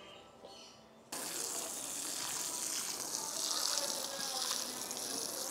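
Water running from a garden hose onto freshly planted potting soil in a plastic planter. It starts suddenly about a second in and then pours steadily.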